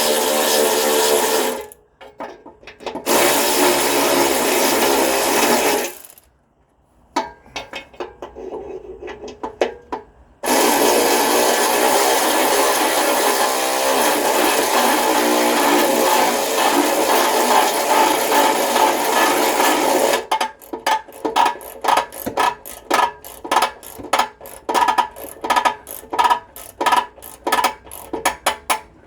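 A power tool running in bursts of a few seconds as nuts on the new exhaust back box's clamps and brackets are done up. Near the end it changes to a quick series of short strokes, about three a second.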